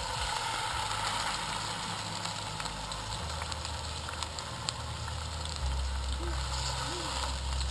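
Pork roast searing in hot oil in a cast-iron Dutch oven: a steady sizzle with small crackles. A low rumble runs underneath and grows louder about three seconds in and again more than halfway through.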